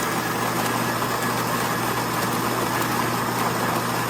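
Built-in burr grinder of a Calphalon Temp iQ espresso machine running steadily with a constant motor hum, grinding coffee into the portafilter.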